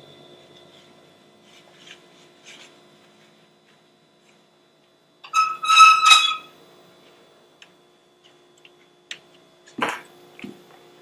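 A glass cooking pot is slid over a gas stove's grate with a short, high, squealing squeak lasting about a second. A single sharp knock follows near the end, over a faint steady hum.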